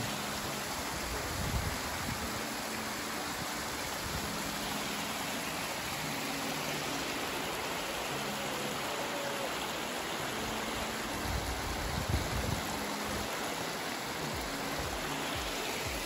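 Waterfall-fed mountain stream splashing over rocks, a steady wash of running water.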